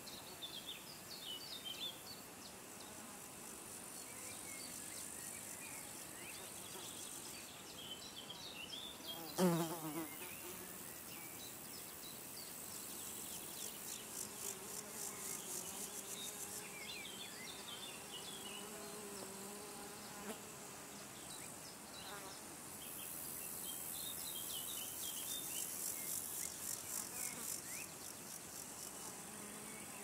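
Flying insects buzzing: one passes close by about a third of the way in, its buzz dropping in pitch as it goes, the loudest sound. A steadier buzz hangs in the middle, over a bed of high, fast-pulsing insect trills and scattered small bird chirps.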